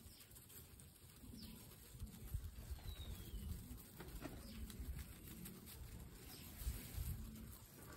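Guinea pigs chewing and tugging at fresh long grass, the stems rustling, with short low calls now and then.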